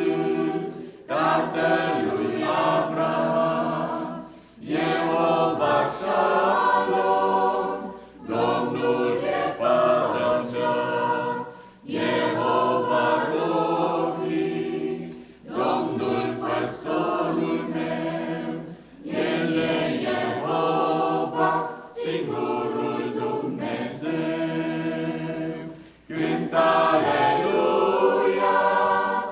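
Mixed choir of men's and women's voices singing together, in phrases of about three to four seconds separated by short breaks.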